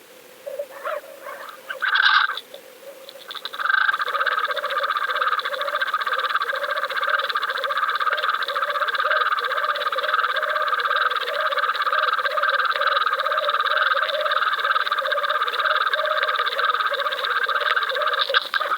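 Fishing reel being cranked slowly, its gears giving a steady whir with an even wobble from the turning handle. The whir starts about three and a half seconds in, after a brief sharper sound.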